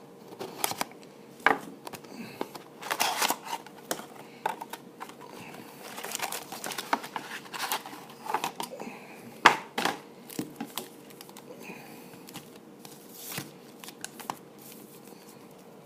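A sealed box of football trading cards being opened by hand: irregular crinkling and tearing of plastic shrink-wrap and cardboard, with sharp rustles and crackles coming in scattered clusters.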